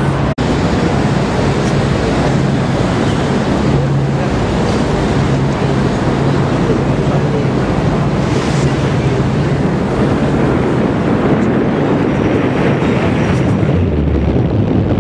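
Wind buffeting the microphone on the deck of a moving harbour cruise boat, with rushing water and the steady low drone of the boat's engine underneath.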